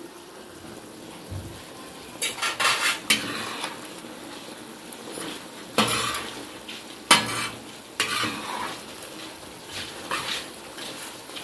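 Mutton chops frying in oil on a tawa, sizzling steadily, while a metal spatula scrapes and clanks against the pan to stir them: a quick run of scrapes about two seconds in, then single sharp strikes several more times.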